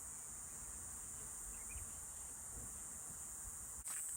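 Steady high-pitched insect chorus droning without a break, with a faint click near the end.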